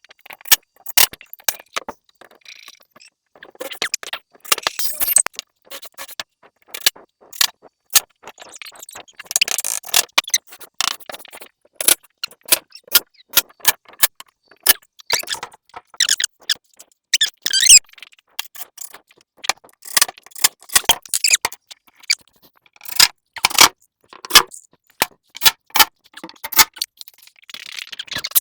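Irregular metallic clinks, taps and short scrapes of small hardware being handled, a metal door latch being fitted and worked by hand.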